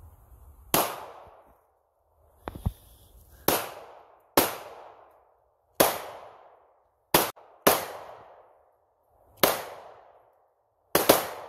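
.45-calibre pistol being fired repeatedly, about nine shots at uneven intervals of one to two seconds, with two fired in quick succession near the end; each shot trails off briefly.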